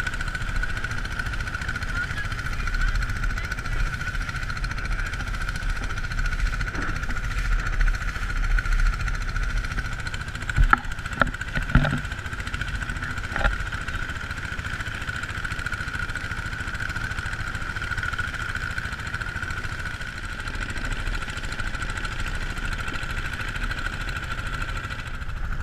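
Long-tail boat engine running steadily at speed, a continuous drone, with a few sharp knocks about halfway through.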